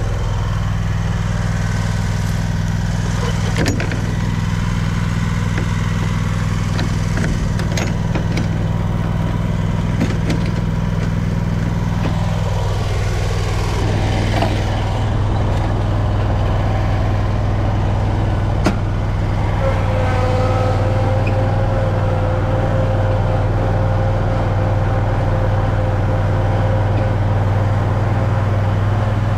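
Lawn mower engine running steadily under load while cutting grass. A higher, steady whine joins about two-thirds of the way through, and there are a few faint clicks.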